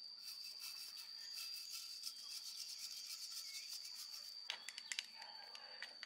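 A hand brush scrubbing the metal casing of an old Fujitsu air conditioner's compressor in quick, repeated scratchy strokes, with a few sharper scrapes near the end.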